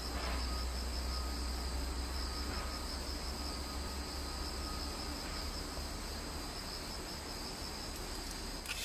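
Steady, high-pitched chorus of insects chirring without a break, over a low, steady rumble.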